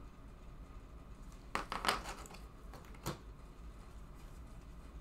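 Trading cards being handled and laid down on a table: a few faint taps and rustles about one and a half seconds in, just after, and again about three seconds in.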